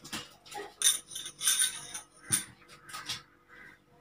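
Metal spoon scraping and clinking against a small glass bowl while scooping turmeric powder into a stainless steel plate. A few light clinks with a short high ring, the brightest about a second in.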